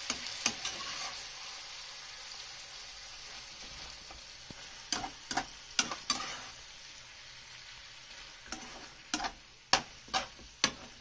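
Roast chicken pieces in paksiw sauce sizzling in a frying pan, growing slowly quieter as the flame is turned down. A slotted metal turner clicks and scrapes against the pan as the chicken is stirred, in short clusters about five seconds in and again near the end.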